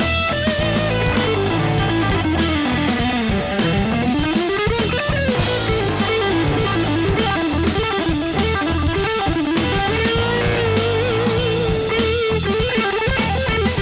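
Background music: a rock instrumental with electric guitar over a drum kit, the lead guitar line sliding up and down in pitch.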